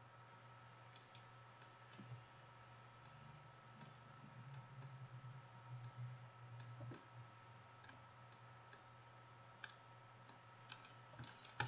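Faint, irregular computer mouse clicks over a low steady hum.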